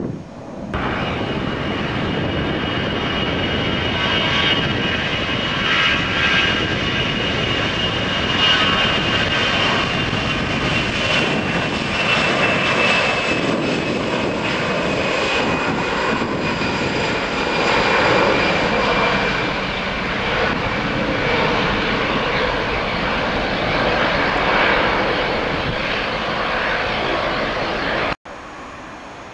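Jet engines of an Airbus A320-family airliner at takeoff thrust during the takeoff roll and lift-off: a steady loud roar with a high whine that slowly falls in pitch. It starts about a second in and cuts off abruptly near the end.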